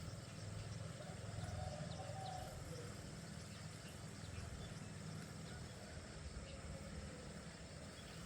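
Faint outdoor ambience: a steady low rumble, with a couple of faint wavering animal calls, one about a second in and another near the end.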